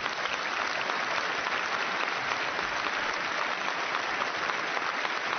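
Conference audience applauding steadily.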